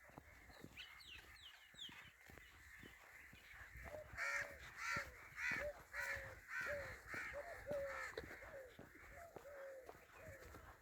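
Crows cawing over and over, about two caws a second, from about four seconds in to near the end. A few short, high bird chirps come earlier.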